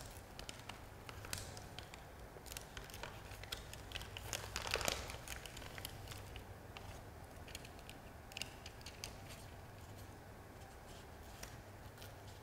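Faint scattered clicks and rustling from a barber's hands and tools at work, with one louder rustle about halfway through.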